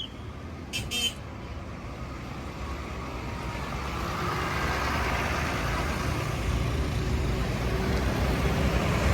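A motor vehicle approaching on the road, its engine and tyre noise growing steadily louder. A brief high-pitched chirp about a second in.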